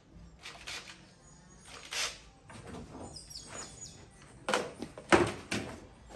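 Scattered knocks and clatter of hands and tools working on a car's bare sheet-metal rear body panel, with a cluster of louder knocks about four and a half to five and a half seconds in. A short high-pitched chirping squeak comes about three seconds in.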